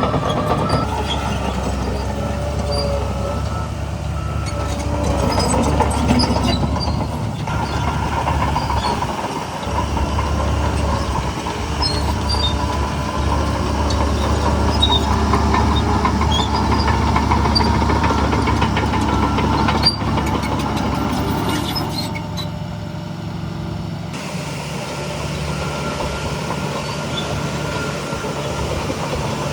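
Shantui crawler bulldozer at work: its diesel engine runs steadily under load while the steel tracks clatter and squeal, with a wavering high tone over the engine.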